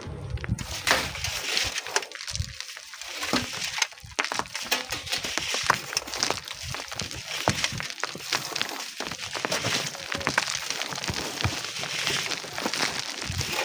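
Sand and stones scraping and knocking irregularly, with a steady hiss under many short sharp knocks.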